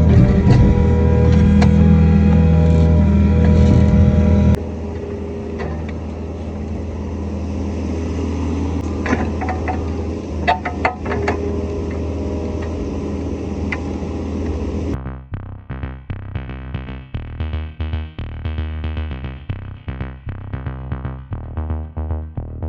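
Kobelco SK55 mini excavator's diesel engine running under load. About four and a half seconds in the level drops suddenly to a quieter engine sound with a few sharp knocks. From about fifteen seconds in, background music with a steady beat takes over.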